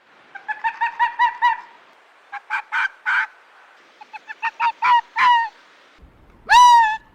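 Animal calls: three quick bouts of short, rapid calls, then, about six seconds in, a single longer and louder call that rises at its start, from a different animal.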